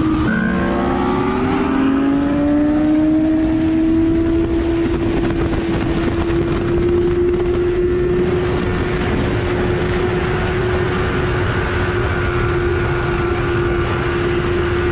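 Motorcycle engine running hard at speed, with a dense rush of wind noise under it. Right at the start the engine note drops sharply and climbs back up over a second or two, as after a gear change, then holds at one steady pitch.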